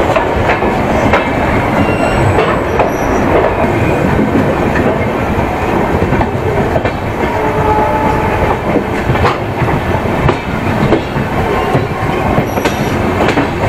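Express passenger train with LHB coaches running along the track: a steady loud rumble, with the wheels clicking over rail joints every now and then.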